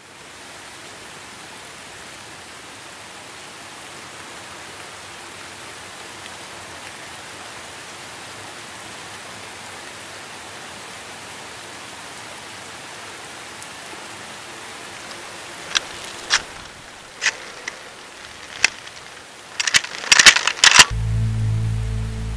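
Steady outdoor hiss, then sharp metallic clicks as 12-gauge shells are pushed one by one into an Uzkon LA887 lever-action shotgun, followed by a quick cluster of loud clacks as the lever is worked to cycle the action. Music starts near the end.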